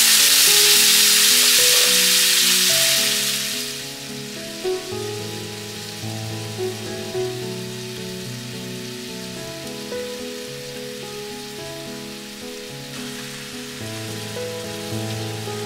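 Food sizzling loudly in a frying pan for about the first three and a half seconds, then dying down to a faint hiss with a few light taps. Background music with a steady melody and bass line plays throughout.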